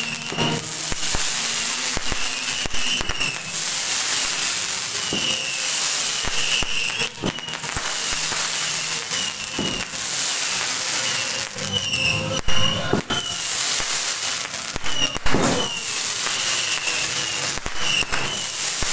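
Fireworks going off: a dense, continuous crackling and hissing with many sharp bangs, the loudest about twelve and a half seconds in.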